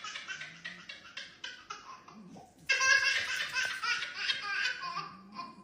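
A young child laughing in a run of quick, high-pitched giggles, softer at first and louder from about halfway through.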